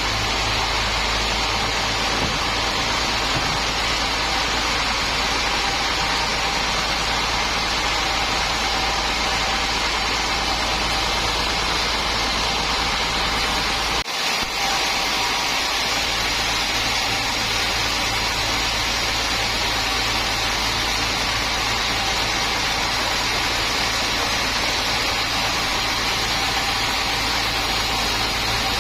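Sawmill machinery running steadily: a loud, even mechanical noise with a constant hum, broken only by a brief dip about halfway through.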